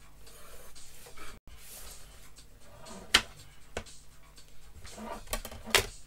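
Drawing instruments handled on a drawing board: a plastic set square and the board's sliding straight edge are shifted and set down, with light rubbing and a few sharp clicks. The loudest click is about three seconds in, and another comes near the end.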